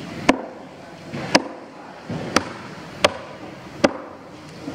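Five sharp chops of a large knife through a giant trevally on a wooden chopping block, about one a second, the last three coming a little faster.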